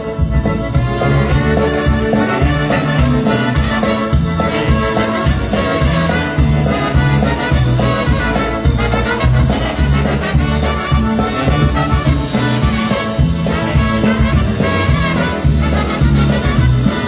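Live polka band playing an instrumental break with a steady bouncing beat, accordion and brass over bass and drums.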